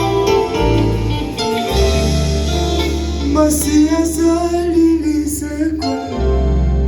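Gospel worship music: singing over guitar, held bass notes and a few cymbal strokes.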